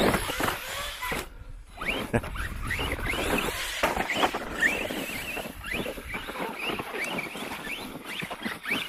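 Brushless electric motors of radio-controlled stunt trucks whining through many quick revs up and down, with a brief lull about a second and a half in, over tyres churning loose dirt.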